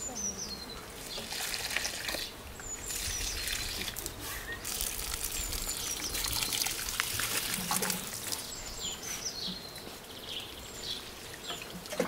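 Water pouring from plastic watering cans onto potted plants and soil, a steady splashing trickle. Short falling bird chirps come now and then.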